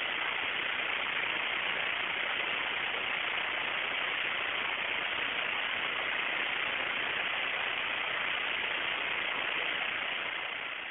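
Steady, even hiss like static, with no voices or distinct events, fading out at the very end.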